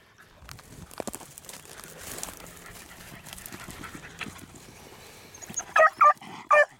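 Beagles rustling through grass and dry brush on a rabbit track, then about four short, loud bays near the end. The handler reads the baying as the hound telling that the rabbit has doubled back.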